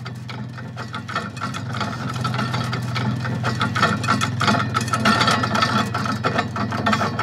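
ATV engine running slowly with a steady low hum, under a fast, irregular metallic clicking and rattling as the spool of smooth fence wire turns on its pipe axle and pays out wire. The rattling grows louder in the second half.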